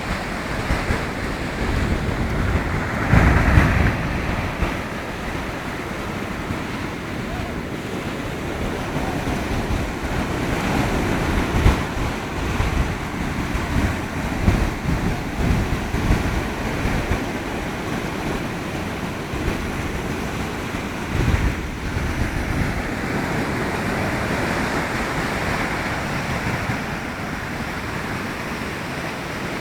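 Big sea waves breaking and washing on the shore in a continuous roar of surf, with several louder surges. Wind buffets the phone's microphone.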